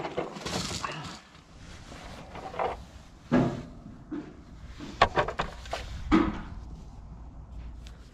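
Irregular knocks, clunks and scrapes of hands and tools working on a quad bike during an oil change, with a low rumble underneath in the second half.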